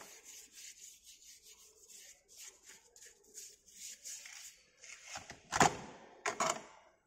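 Quick repeated rubbing strokes, about two or three a second, as the drag box of a sand-moulding flask is wiped down with water, then two heavy knocks about five and a half and six and a half seconds in.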